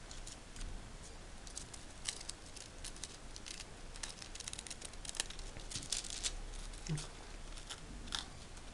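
Scissors snipping through folded paper in a run of short, irregular cuts, cutting zig-zag leaf shapes, with the paper crinkling as it is handled near the end.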